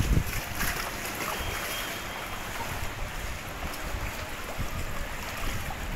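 Muddy floodwater lapping and sloshing in a flooded street, with gusts of wind buffeting the microphone, strongest near the start.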